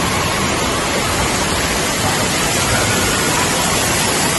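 Steady, even rush of falling and splashing water from indoor water-park play features and slides.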